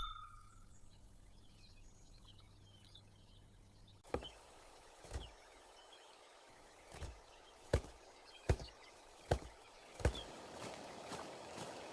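Faint birdsong, then from about four seconds in seven sharp knocks roughly a second apart, followed near the end by quicker light ticks over a rising hiss.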